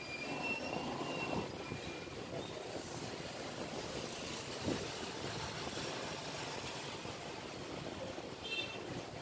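Steady background noise of street traffic, with a brief high-pitched tone near the end.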